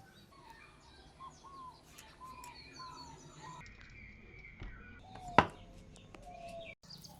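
Birds chirping, many short quick calls, with one sharp click about five seconds in.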